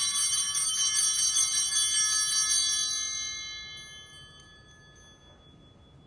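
Altar bells (a cluster of small Sanctus bells) shaken rapidly and ringing, marking the elevation of the consecrated host. About three seconds in the shaking stops and the ringing fades away.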